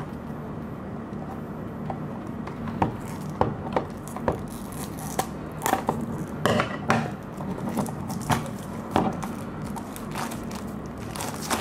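Small cardboard box of a Mini GT diecast model car being slit open with a blade and pulled open by hand: irregular clicks, scrapes and rustles of cardboard, over a steady low hum.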